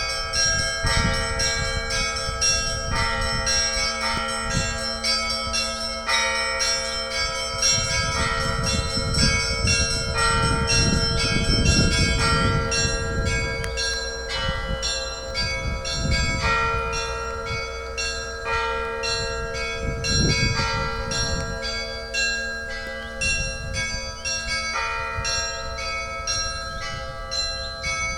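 Russian Orthodox church bells ringing in a festive peal: quick rhythmic strikes of several smaller bells of different pitches over a steady ringing tone held throughout.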